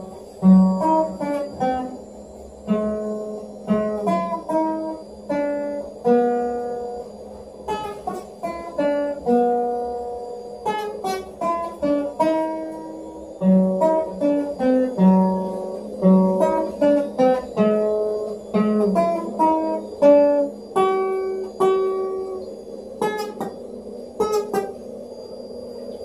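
Classical acoustic guitar plucked one note at a time, a slow single-line melody being practised, each note ringing out and fading before the next, with a few quicker runs of notes.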